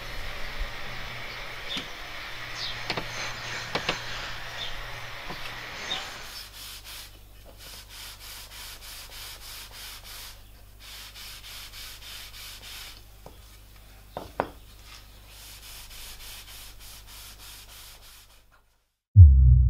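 Small plywood letter cut-outs rubbed back and forth against a cloth-covered workbench in quick, even scraping strokes, with a few light wooden knocks. The rubbing cuts off near the end and a low musical tone comes in.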